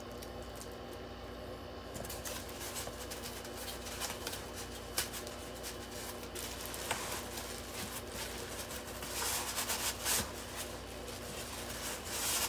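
Packing material and cardboard rustling and crinkling as hands dig through an opened shipping box. It starts about two seconds in, with louder bursts of rustling around ten seconds in and near the end.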